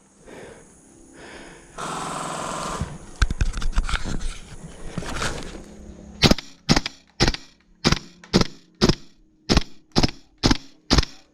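Airsoft gun fire: a one-second rattling burst about two seconds in, scattered clicks, then from about six seconds on a steady string of single sharp shots about two a second.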